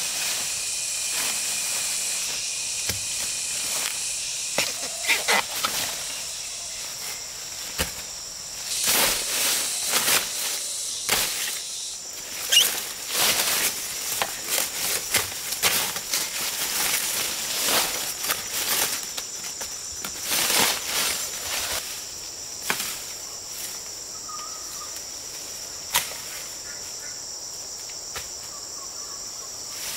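A steady, high-pitched chorus of forest insects. Over it, a machete chops through undergrowth and leaves rustle in a run of sharp knocks and short rustling bursts through the middle stretch, settling down near the end.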